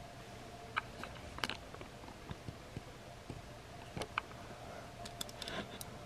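Faint scattered clicks and taps of plastic action figures being handled, with more of them near the end, over a faint steady hum.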